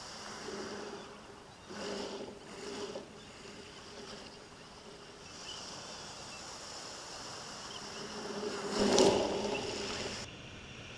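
Surf washing up the stony beach, picked up by a GoPro lying among the cobbles, over a steady buzzing hum. The biggest surge swells and fades about nine seconds in, and the sound changes abruptly near the end.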